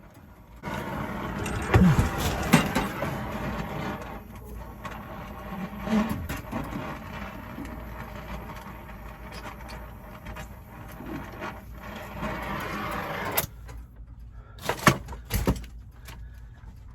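A machine running steadily with a faint hum, cutting off abruptly about thirteen seconds in, followed by a few sharp knocks.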